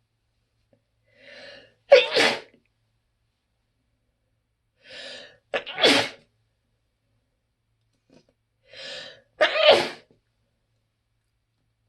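A woman sneezing loudly three times, about four seconds apart, each sneeze preceded by a quieter breathy intake. Allergy sneezes, from pollen allergy.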